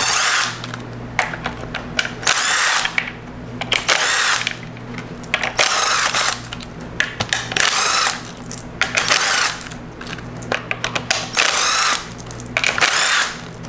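Cordless impact driver with a 10 mm socket running nuts off the terminal studs of a NiMH hybrid battery pack, in about ten short bursts of half a second to a second each.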